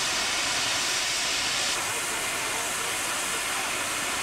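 Steady hiss of steam from Milwaukee Road 261, a 4-8-4 Northern-type steam locomotive standing with crew boarding the cab. The hiss softens slightly in its upper part about two seconds in.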